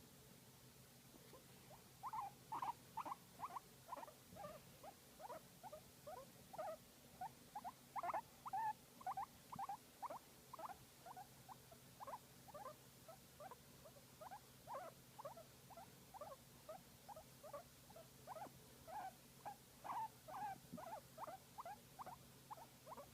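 Guinea pig making a long series of short squeaks, about two to three a second, starting about two seconds in, while being massaged.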